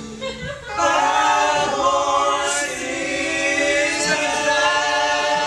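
A small vocal ensemble singing a cappella in close harmony, holding long chords; the voices come in just under a second in.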